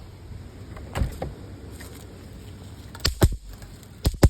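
A series of sharp knocks and clunks: one about a second in, then several close together near the end.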